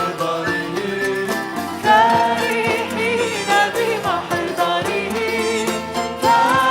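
Upbeat Arabic church praise music from a worship band, with drums keeping the beat under a wavering, ornamented melody line.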